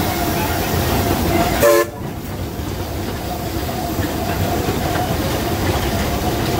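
Bagnall 0-4-0 saddle-tank steam locomotive running slowly on narrow-gauge track as it comes in to stop, heard from the footplate: a steady rumble and rattle of wheels and motion. There is a short toot of the steam whistle about two seconds in, after which the high hiss drops away.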